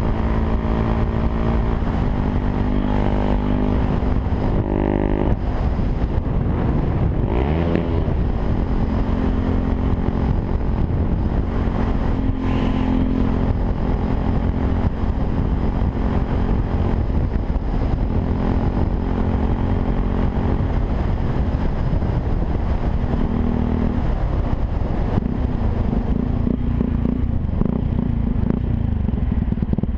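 Yamaha WR 125 R's single-cylinder four-stroke engine running through a Takkoni aftermarket exhaust, its pitch stepping up and down several times. Heavy wind noise on the microphone runs underneath.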